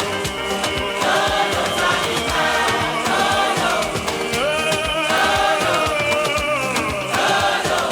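Gospel choir singing with a band, over a steady drumbeat.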